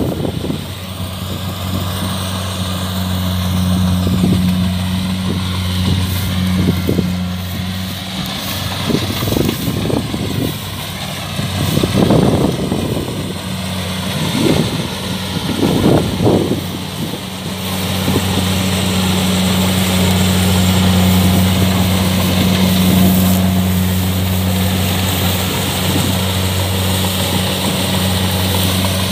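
Kubota DC-70 combine harvester's diesel engine running at a steady drone while harvesting. Midway the drone drops back for several seconds and a series of irregular low thumps comes through, then the steady drone returns.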